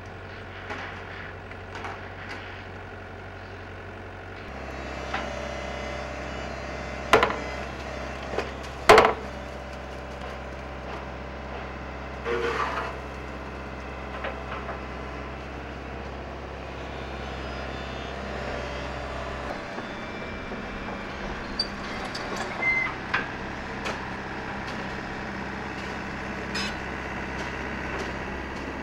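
A heavy excavator's diesel engine runs steadily, its note stepping up about four seconds in. Two loud sharp cracks follow a few seconds later, then a rougher crash and scattered smaller knocks, the sounds of building timber being broken in demolition.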